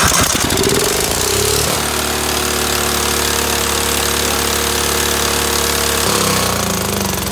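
Cub Cadet 2135 riding mower's OHV engine racing just after start-up. It climbs in pitch over the first second and then holds a steady, very high speed, ridiculously high. About six seconds in the note shifts as the throttle is pulled back, but the engine does not settle to idle. It is over-revving, running away on idle, which the owner puts down to a throttle and governor setting he cannot get right.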